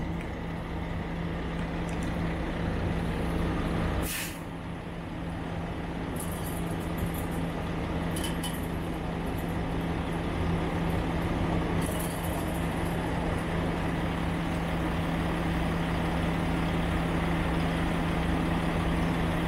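Steady hum of an idling diesel truck engine, with a fixed low tone. A sharp knock sounds about four seconds in, and a few faint metallic rattles come from the chain-link fence being climbed.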